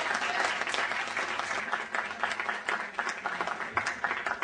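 Audience applauding in a hall, the clapping thinning to scattered separate claps toward the end.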